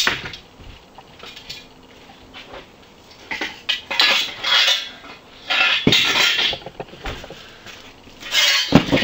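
Metal tube-frame robot parts clattering and clinking as they are handled and set down: several bursts of rattling with a few sharp knocks, the last one near the end.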